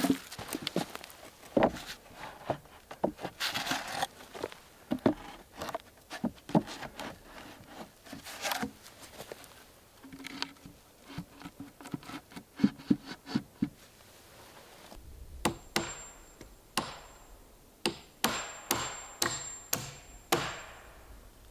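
Freshly split wooden boards knocking and clattering against each other, with scraping, as they are picked up and laid onto a wooden frame. Near the end comes a quicker run of about ten sharp knocks with a faint high ring.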